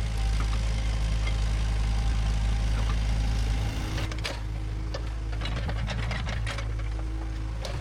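Bulldozer's diesel engine running with a steady low drone, easing off a little past halfway, followed by a scatter of sharp clanks and knocks.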